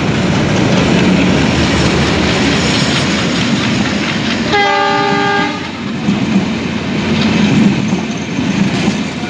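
Diesel-hauled express passenger train passing close by at speed: the locomotive goes by, then the coaches rush past with a steady clatter of wheels over the rails. Near the middle a train horn sounds once for about a second.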